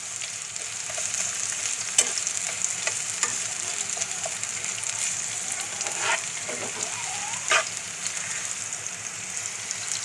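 Chopped onions and green chillies sizzling in hot oil in a pan as they are sautéed, a steady high hiss, with a spatula stirring and knocking sharply against the pan a few times.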